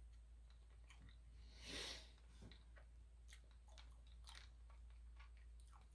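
Faint mouth sounds of a person eating a hard sugar candy: small scattered clicks of the candy in the mouth, with one soft hiss about two seconds in.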